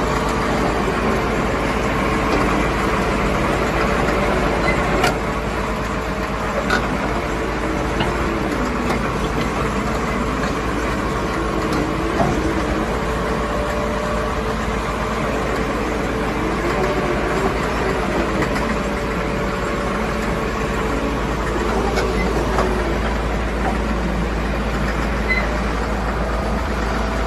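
Caterpillar D7G bulldozer's Caterpillar 3306 diesel engine running steadily, with its pitch drifting slightly up and down and a few brief knocks.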